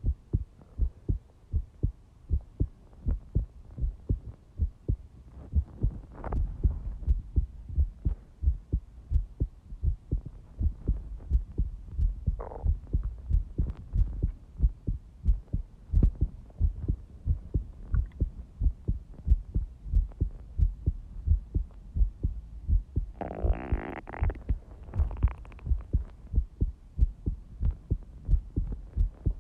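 Heartbeat recording: steady, regular low thumps repeating throughout, with a brief scraping rustle a little past two-thirds of the way through.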